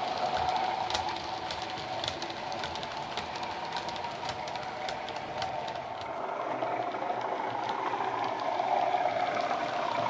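Model Class 37 diesel locomotive's DCC sound decoder playing a recorded English Electric engine through a small Megabass speaker, with the model wagons' wheels clicking irregularly over the rail joints. After a break about six seconds in, the clicks stop and the engine sound grows louder as the locomotive approaches.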